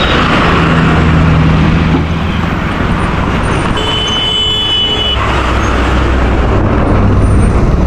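Road traffic in a jam: heavy lorry and bus engines running close by, a steady low drone under a wash of road noise. A thin high tone sounds for about a second and a half around the middle.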